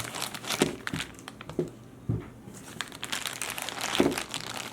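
Plastic packaging crinkling and crackling in irregular handfuls as a small figure is worked out of its box, louder about half a second, two seconds and four seconds in.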